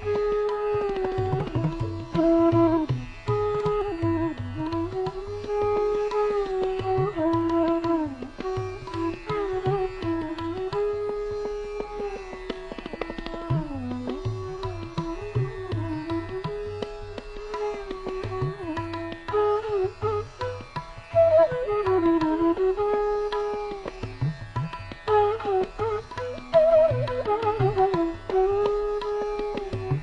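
Instrumental background music in an Indian classical style: a melody that slides and bends between notes over a steady hand-drum pattern.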